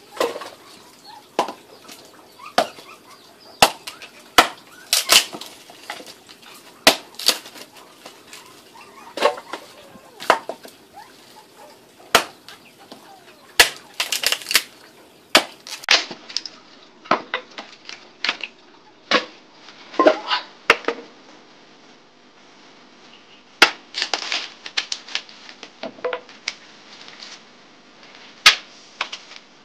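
A blade chopping wood: irregular sharp blows on a log, usually a second or two apart, with some quicker runs of strikes.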